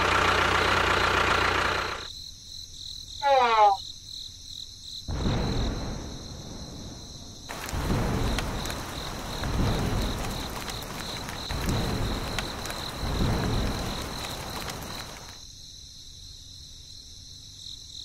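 Sound effects over a miniature scene: a steady high chirping of crickets runs throughout. The first two seconds are a louder, dense noise, a short falling cartoon-like whistle comes about three seconds in, and from the middle on falling rain hisses, with several low rumbles.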